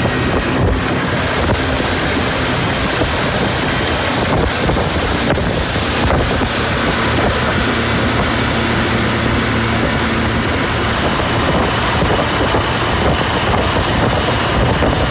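A motorboat under way at speed: steady wind buffeting on the microphone and rushing water from the wake, over the low, even hum of its Yamaha 90 outboard motor.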